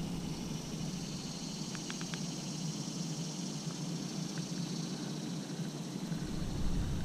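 Quiet riverside outdoor ambience dominated by a steady, high-pitched drone of insects in the trees, with a few faint clicks about two seconds in. A low rumble comes in near the end.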